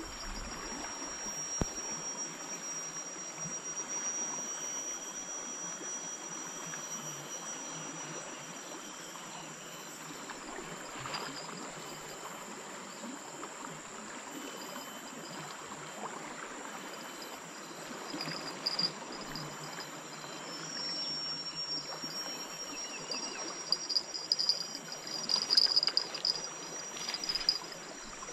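A fast-flowing river in spate rushes steadily, with insects making a thin, high, continuous buzz over it. A few louder chirps and clicks come near the end.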